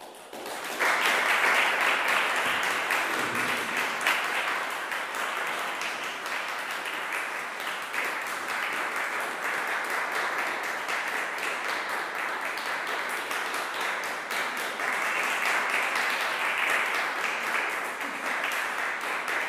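Audience applauding. The clapping breaks out suddenly from silence, is at full strength within a second, and swells again near the end.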